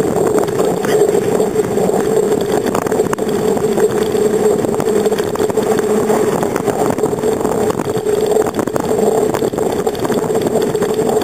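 Steady noise of a bicycle ride picked up by a handlebar-mounted camera: wind and road rush with a constant droning hum.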